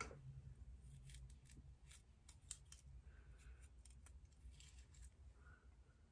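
Near silence with faint scattered clicks and light rustling, from synthetic braiding hair and a crochet hook being worked close to the head, over a low steady hum.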